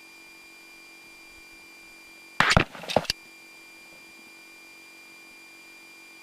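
A faint steady electrical hiss with a few thin, constant whines, with no engine running. About two and a half seconds in, a short cluster of loud knocks and crackles lasting under a second, typical of equipment being handled.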